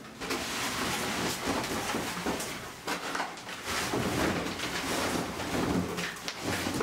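Painted wooden wall panels being pried off a boat's steel frame with a pry bar: repeated cracks and knocks as the boards split and tear loose, with scraping as the loosened panels shift.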